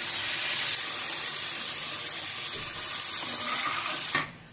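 Water poured from a steel katori into a hot kadhai of ghee-roasted moong dal paste: a steady splashing pour that stops abruptly about four seconds in.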